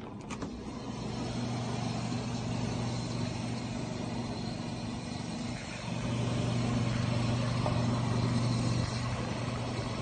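1990 GE Hotpoint top-freezer refrigerator running, a steady low hum that gets louder about six seconds in.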